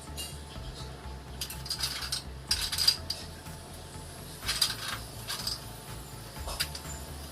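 Scattered sharp metallic clicks and clinks from handling a manual racket-stringing machine's clamps and tools while stringing a racket, a few irregular strikes a couple of seconds apart.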